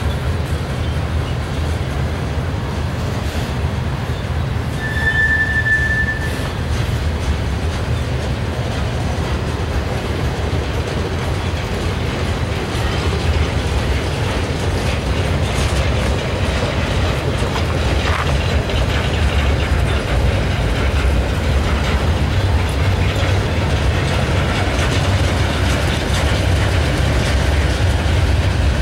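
Freight train flatcars loaded with steel pipe rolling past on the rails: a steady low rumble of wheels with scattered clicks from the rail joints. A brief high squeal sounds about five seconds in.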